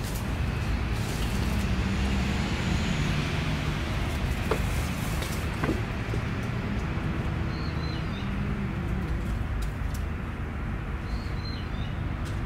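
Steady low rumble of road traffic. Two faint, short high squeaks come through it, the second near the end.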